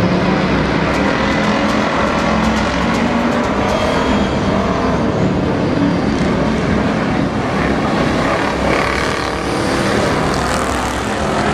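A pack of dirt-track stock cars racing on the oval, their engines running loudly and without a break.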